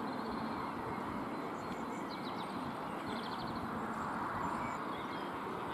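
Steady outdoor background noise from an open field microphone, with a few faint bird chirps about two and three seconds in.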